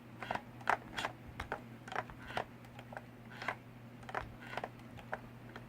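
FrSky Taranis X9D transmitter's gimbal sticks being swept around their full travel for stick calibration: a scatter of irregular light clicks and taps, a few a second.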